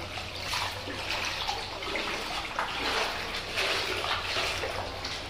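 Floodwater sloshing and splashing as someone wades through it, swelling in surges about once a second.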